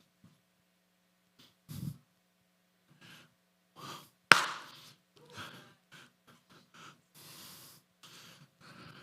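Breaths and small noises close to a microphone during a pause in speaking, with one sharp knock about four seconds in, the loudest sound here.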